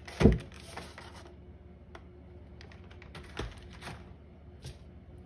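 A dull thump about a quarter second in, then scattered faint clicks and light rustling as ingredients and utensils are handled on a kitchen countertop.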